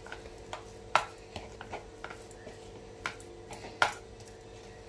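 Bangles and a hand knocking against a plastic mixing bowl as soft dough is pressed together: a scatter of short sharp clicks, the loudest about a second in and again near the end, over a faint steady hum.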